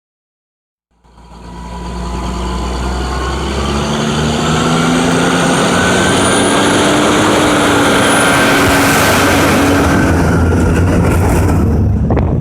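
Yard truck's diesel engine running hard and accelerating, its pitch climbing slowly; the sound builds up over the first few seconds.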